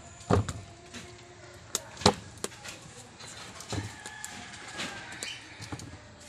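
Metal tongs clacking against an aluminium cooking pot and a basin as boiled bananas are lifted out and dropped in. There are several sharp knocks, the loudest about a third of a second in and just after two seconds.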